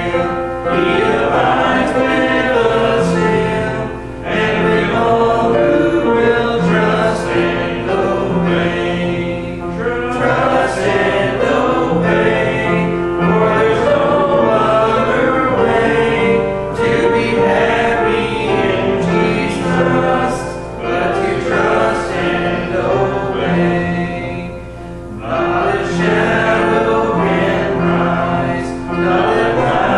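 Church congregation singing a hymn together, many voices holding long notes in unison.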